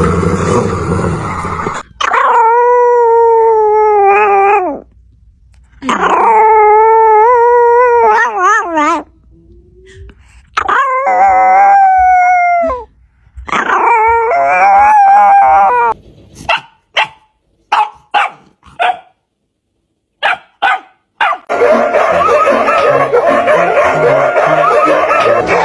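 A dog howling: four long, wavering howls, then a quick run of short, sharp yips. The last few seconds hold a denser, rougher stretch of dog sound.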